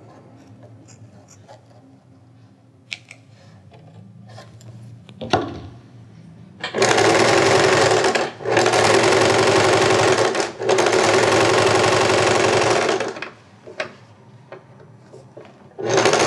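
Electric domestic sewing machine stitching cord piping onto fabric in three short runs, one after another, starting about seven seconds in, then starting again right at the end. Before it come faint snips and clicks of scissors clipping small notches in the seam allowance.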